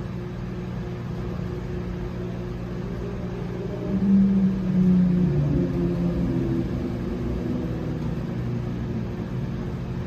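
Whirlpool MWX201 mechanical microwave oven running, giving a steady electrical hum. About four seconds in, a louder wavering tone joins the hum for about two seconds.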